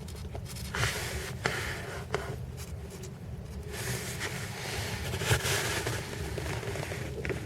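WD-40 aerosol can spraying lubricant onto the squeaking car-seat mechanism: two long hisses, the first about a second in and the second from about four seconds in, with a few small clicks.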